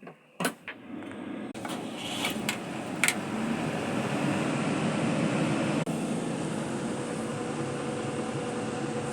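Sany 140 excavator's diesel engine running, building up over the first few seconds and then holding steady, with a few sharp clicks and knocks at the start.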